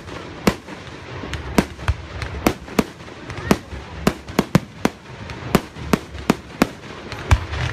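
Fireworks display: aerial shells bursting in a rapid, irregular run of sharp bangs, about two or three a second, with a low rumble between them.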